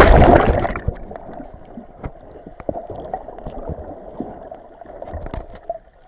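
A person plunging into the sea. The loud entry splash fades over the first second into muffled underwater bubbling and gurgling, heard with the camera submerged, with scattered small knocks.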